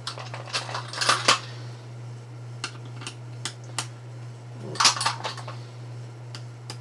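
Metal clicks and clinks as a turning tool and the tool post on a Proxxon FD 150/E mini lathe's cross slide are handled: a cluster of clatter about a second in, a few single clicks, then another cluster about five seconds in.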